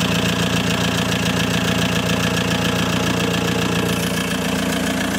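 VW AHU 1.9 TDI four-cylinder turbodiesel engine, newly swapped into a T25 camper, idling steadily.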